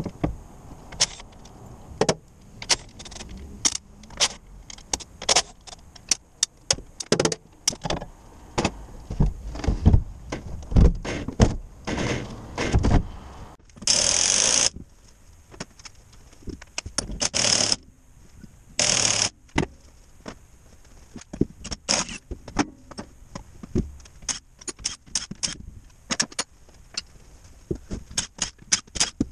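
Metal clanking and knocking as a JATCO JR403E automatic transmission is unbolted on a steel workbench, with tools and parts set down on the metal top. About halfway through come three short bursts of a cordless impact wrench spinning out bolts.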